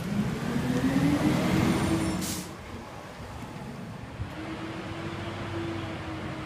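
Labrie Expert side-loading garbage truck's diesel engine pulling away under load, its pitch climbing, dropping off about two and a half seconds in, then climbing again.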